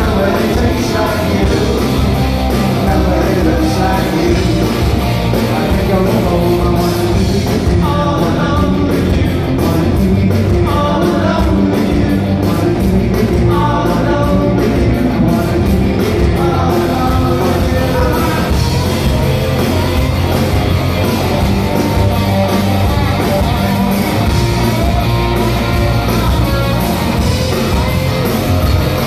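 Live rock band playing: electric guitars, bass guitar and drums, with a lead vocal sung over them in the middle of the passage.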